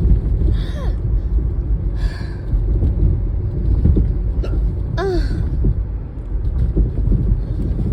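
A few short hiccups over the steady low rumble of a moving car, heard from inside the cabin; the loudest hiccup comes about five seconds in.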